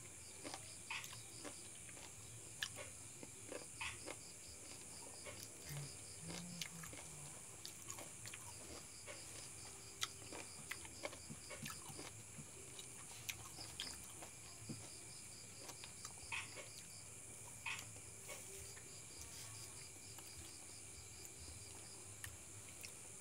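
Faint chewing and small wet mouth clicks of a person eating sour lemon slices, scattered and irregular, over a steady high insect trill.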